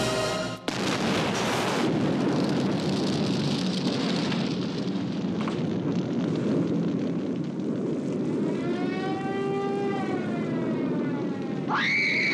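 Jet aircraft noise, a loud steady rush that starts abruptly about half a second in. Late on a pitched whine rises and falls, and right at the end a sharp high sound shoots up and falls away.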